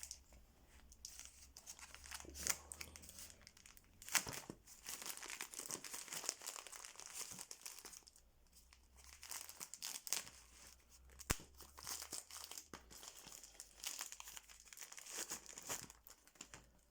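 Parcel packaging being handled and rummaged through: on-and-off crinkling and rustling with some tearing, and a couple of sharp clicks or knocks, one about four seconds in and one past the middle.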